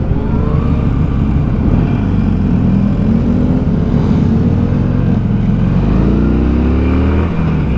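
Harley-Davidson Sportster V-twin engine running while riding. It rises in pitch under acceleration just after the start and again about six seconds in.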